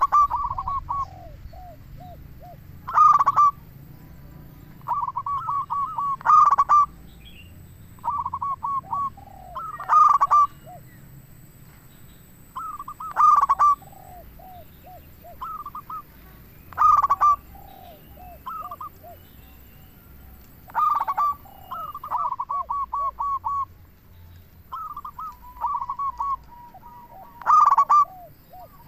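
Zebra dove (perkutut) cooing: phrases of quick coos, each opening with a loud note and sometimes trailing off in lower falling notes, repeated every three to four seconds.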